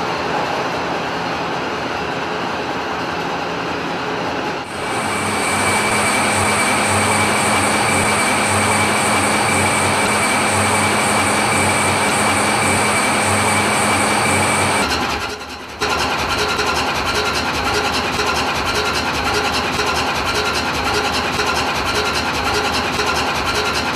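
Steady industrial machinery noise with a constant hum and a thin high whine, its character changing abruptly about five seconds in and again about fifteen seconds in.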